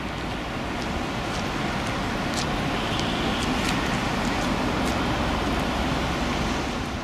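Steady road traffic noise with a few faint ticks.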